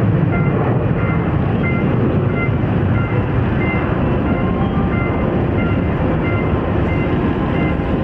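Jet airliner's engines running in a loud, steady rumble, with a faint whine that comes and goes.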